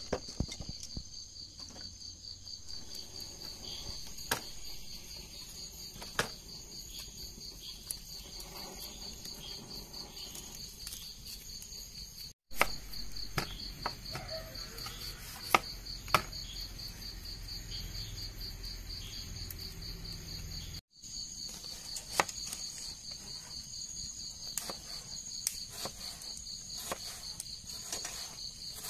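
Crickets chirping in a steady, fast, high trill. Scattered sharp clicks and knocks sound over it, including knife taps on a plastic cutting board in the second half. The sound cuts out for an instant twice.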